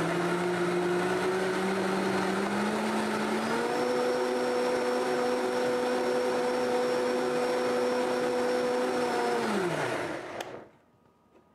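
High-speed blender motor running on a thin liquid mix of soaked dates, strawberries and water. Its pitch climbs over the first few seconds and holds steady, then it winds down and stops about ten seconds in.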